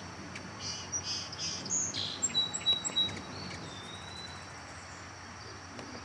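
Hummingbirds at a feeder giving a quick run of short, high chips and twitters over the first three seconds, with a thin high note held briefly near the middle. After that only a faint steady outdoor background remains.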